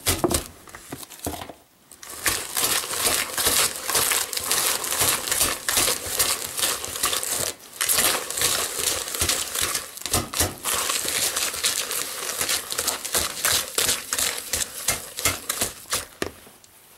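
Wire whisk beaten fast through a thick, grainy mix of melted butter, sugar and molasses in a plastic bowl: rapid crackling and scraping of the wires against the dough and the bowl's side. It pauses briefly near the start and again about halfway through.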